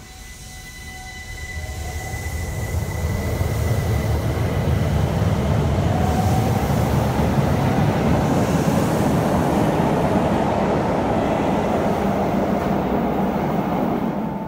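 Keihan 800-series electric train pulling out of an underground station. The Toyo IGBT three-level VVVF inverter whine rises as it accelerates, over the rumble of wheels on rail. The noise builds from about a second in, holds, then falls away near the end as the train clears the platform.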